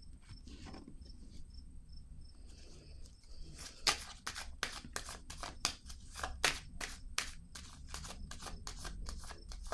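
A deck of oracle cards shuffled by hand: from a few seconds in, a quick, irregular run of crisp card snaps and clicks, several a second.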